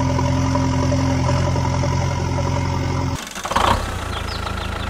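Vehicle engine running steadily, cut off abruptly about three seconds in. A brief loud burst of noise follows, then a different engine running steadily.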